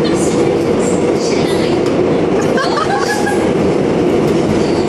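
Subway train car running, heard from inside the car: a steady, even noise of the moving train.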